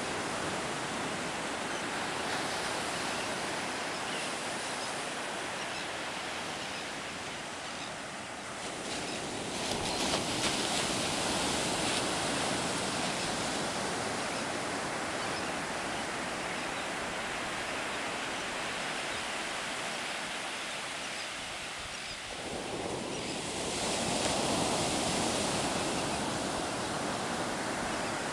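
Ocean surf breaking on a sandy beach: a steady rushing wash that swells louder about ten seconds in and again near the end as waves come in.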